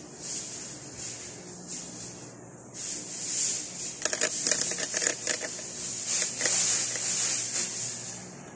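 Rustling and rubbing handling noise over a steady high hiss, busiest from about four to five and a half seconds in.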